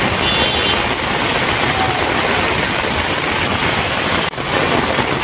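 Muddy floodwater rushing and churning across a road: a loud, steady rush of water that breaks off for an instant about four seconds in.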